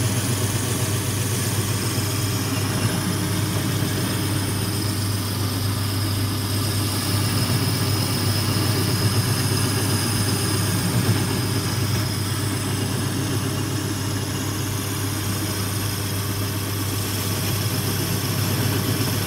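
Boxford Model A lathe running steadily with a spinning stainless steel bar in the chuck while a parting tool cuts it off: a constant low motor hum under a hissing, scraping cutting noise.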